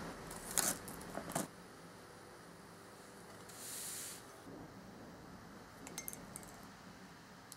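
Hands handling a paper snack packet, a crinkly rustle with a few sharp clicks in the first second and a half. A short soft hiss follows about four seconds in, then a few light clinks about six seconds in.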